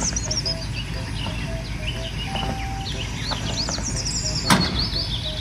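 Birds chirping over a light background tune and a low steady rumble, with one sharp click about four and a half seconds in.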